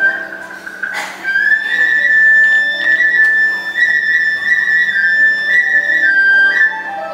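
Live traditional Vietnamese ensemble music: a flute holds long, steady high notes, stepping between a few pitches, over quieter lower accompaniment. A single sharp knock sounds about a second in.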